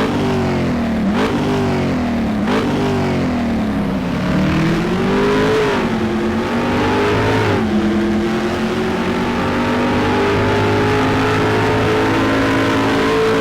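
Race-car engine revving up through the gears, with its pitch climbing and dropping back sharply about a second in and again near two and a half seconds. It then settles into a steady high-revving drone.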